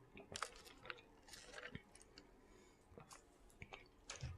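Quiet chewing with scattered wet lip smacks and mouth clicks.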